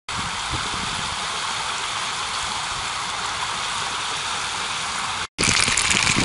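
Creek water rushing over a small rocky riffle: a steady, even rush. After a brief cut about five seconds in it returns louder and closer.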